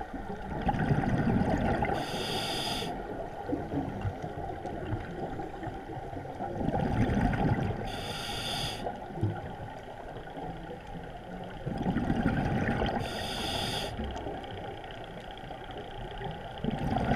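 Underwater scuba breathing through a regulator: a low gurgling rush of exhaled bubbles followed each time by a short high hiss of the demand valve on the inhale, three breaths about five and a half seconds apart.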